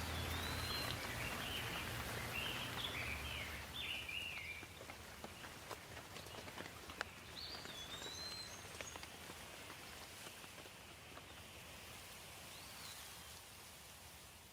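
Birds chirping in short, quick phrases over a steady hiss of rain with scattered drip ticks. The chirping is busiest in the first few seconds, comes back twice later, and the sound fades near the end.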